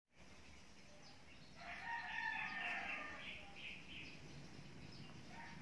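A rooster crowing: one long call starting about one and a half seconds in, trailing off into a few shorter notes.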